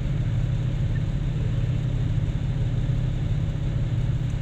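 Steady low drone of heavy diesel engines running: a Cat 6020B hydraulic mining shovel and a Cat 777E haul truck during loading.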